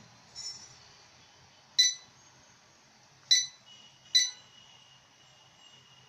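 Three short electronic beeps from an automatic school bell controller's key-press beeper, each one confirming a button pressed on its remote; the second and third come close together.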